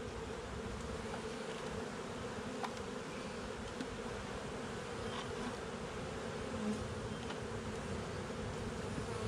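Honeybee colony buzzing steadily around an opened hive box during an inspection, with a couple of faint clicks.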